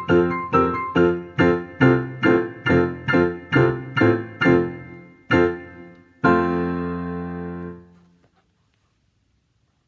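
Digital piano playing the close of a four-hand duet, the Primo part over the pre-recorded Secondo. A run of repeated chords, about two and a half a second, grows quieter and slows, then one loud final chord is held for about a second and a half before it stops.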